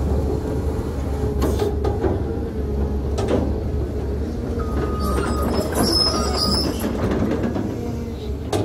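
Cat 320 hydraulic excavator running steadily while trimming a soil slope, with its bucket scraping across the dirt. A few sharp clanks come from the bucket and linkage, and short high squeaks sound about midway.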